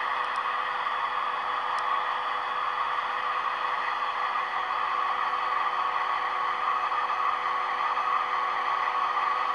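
Sound-decoder diesel engine sound of an FS D345 locomotive, sampled from a real D345, running steadily through the small speaker of a Roco model locomotive, thin and without deep bass. A couple of faint ticks come in the first two seconds.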